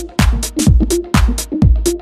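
Electronic house-style dance music with a steady kick drum about twice a second and hi-hat hits between the beats.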